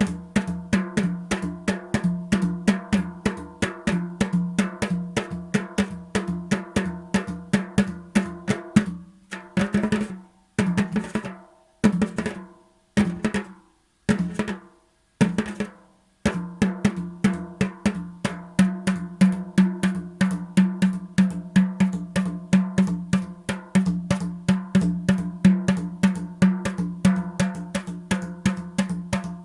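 Drumming: fast, even strokes at about four to five a second over a steady pitched ring. About nine seconds in the beat drops to a few separated strokes with short silences between, then picks up again about sixteen seconds in.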